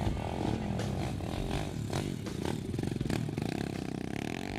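Pit bike engine running and revving unevenly, settling to a steadier note near the end.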